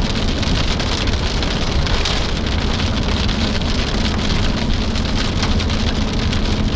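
Rain and small hail hitting the roof and windshield of a moving vehicle: a steady dense hiss of many tiny impacts over low road and engine rumble.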